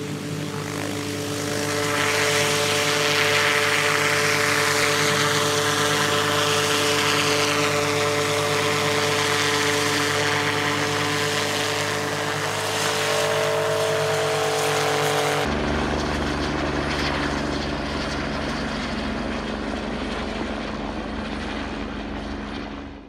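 Helicopter's turbine and rotor running at full power as it lifts off: a steady engine whine with a wide rushing noise that swells about two seconds in. About two-thirds of the way through, the sound changes abruptly to a duller, lower rumble.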